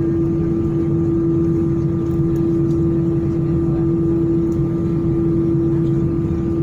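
Steady drone inside an Airbus A319 cabin while the airliner taxis with its jet engines at idle: a constant humming tone over a low rumble.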